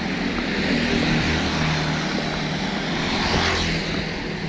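Road traffic: a small motorcycle engine running as it rides off, with a steady hum and a broad swell of passing noise about three and a half seconds in.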